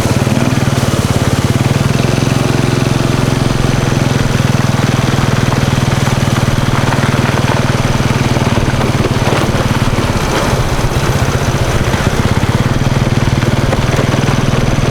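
A vehicle's engine running steadily on the move, easing off briefly about ten seconds in.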